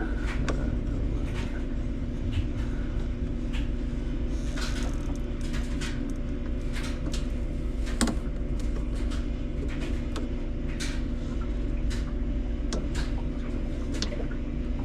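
Scattered clicks and knocks of tools and metal parts being handled while a top-load washer is put back together, with one sharper knock about eight seconds in, over a steady background hum.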